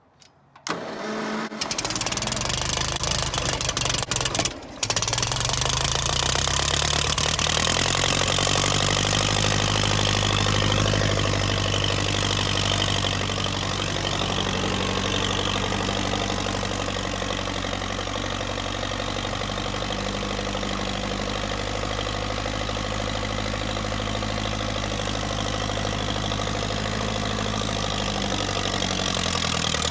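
1952 Massey Ferguson TEA20 tractor's four-cylinder engine running as the tractor is driven, its pitch rising over the first several seconds and then holding steady, dipping slightly near the end. The sound begins about a second in, with a short break about four and a half seconds in.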